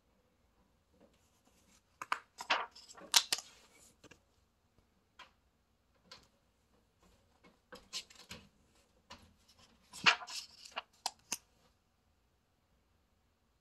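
Pages of a hardcover picture book being turned twice: paper rustling with sharp crackles, in two bursts a few seconds apart.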